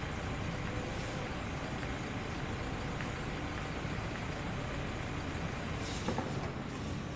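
Steady outdoor urban background noise, like distant road traffic, with one brief sharp knock about six seconds in.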